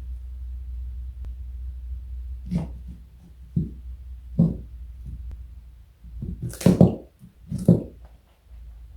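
A rabbit eating carrot: a handful of short, irregular crunches, the loudest few near the end, over a steady low hum.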